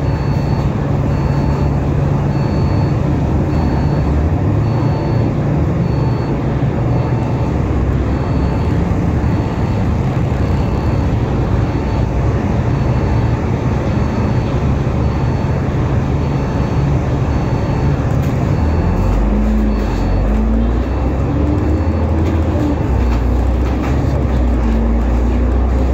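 Alexander Dennis Enviro500 MMC double-decker bus running, its diesel engine and drivetrain heard from inside the cabin as a steady hum. About eighteen seconds in, the hum drops deeper and a rising whine comes in. A faint short beep repeats about every 0.7 seconds and stops about twenty seconds in.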